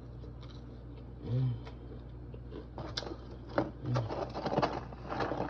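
Close-up chewing of crunchy air-fried fries, with sharp crackly crunches coming thick over the second half, and a short hummed "mm" about a second in.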